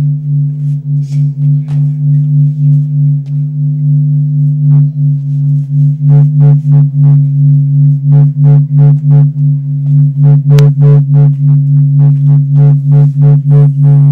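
Electronic music: a steady low drone that pulses in loudness, joined about six seconds in by a quick, regular beat of sharp clicks and low kicks.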